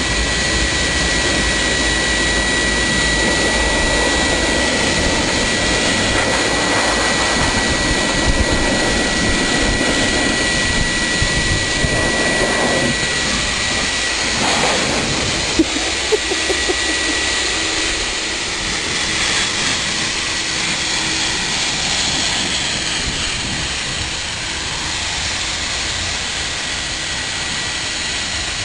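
High-velocity dog dryer (blaster) blowing on a Newfoundland's thick coat: a loud, steady rush of air over a high motor whine. The rush shifts and the whine fades about halfway through, with a few light knocks.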